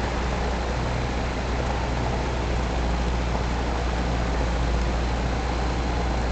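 Cessna 172's piston engine and propeller heard from inside the cabin, running steadily with a deep, even hum and a wash of noise over it.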